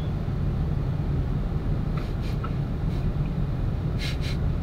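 Pickup truck engine idling with a steady low rumble, and two short higher-pitched sounds near the end.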